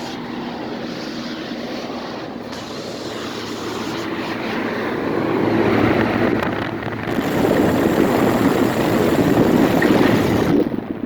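Large outdoor HVAC fan running with a steady rush of air, getting louder about halfway through.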